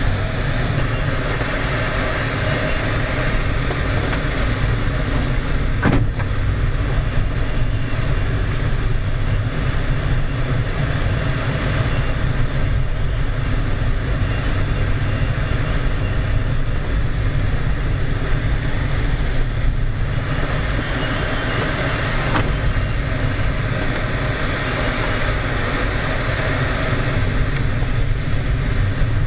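Steady rush of airflow over a glider's canopy heard inside the cockpit, a deep even rumble with a hiss above it and no engine. A single sharp click about six seconds in.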